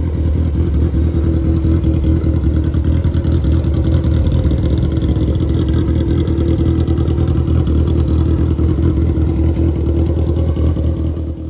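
Honda CBR 954RR motorcycle's inline-four engine running loudly at a steady speed, cutting off just before the end.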